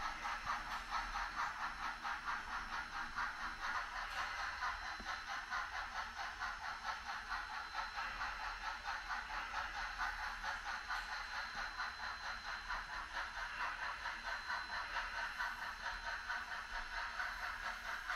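HO-scale model train running along its track, a steady fine rattle and clatter of wheels and drive with a faint high whine.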